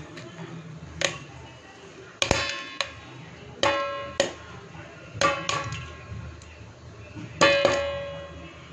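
Popcorn kernels popping one at a time in a covered pan, about nine sharp pops at uneven intervals. Each pop is followed by a brief metallic ring.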